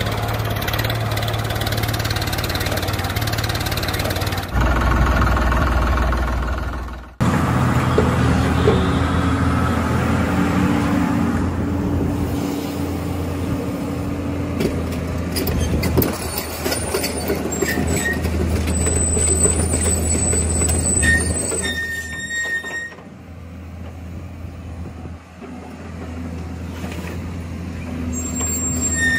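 Machine drone from RC construction vehicles, with a steady low hum that changes abruptly several times. It turns quieter for the last few seconds, with a few short high squeaks.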